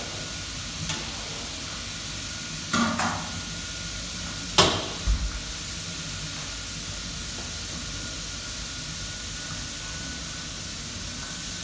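Kitchen background: a steady hiss with a faint high whine, broken by a few knocks. The loudest and sharpest comes about four and a half seconds in, followed by a dull thump.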